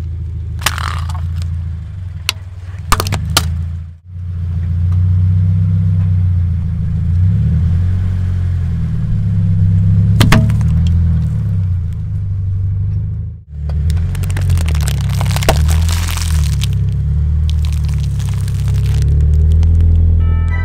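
A car engine runs low and steady as the car's tyre rolls over objects on asphalt. Sharp cracks and crunching sound as they break under it: a few single cracks near the start, one about halfway through, and bursts of dense crackling in the later part. The engine sound cuts off briefly twice.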